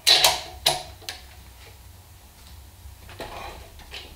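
Sharp metallic clanks of a socket wrench on a Dana 44 steering knuckle: two loud clacks in the first second and a lighter click just after, then a softer scrape a little past three seconds.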